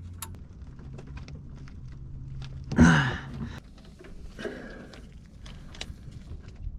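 Scattered light metallic clicks and knocks of a 16 mm socket wrench being set on and worked against the oil drain plug, with a short grunt-like voice about three seconds in and a fainter one a little later.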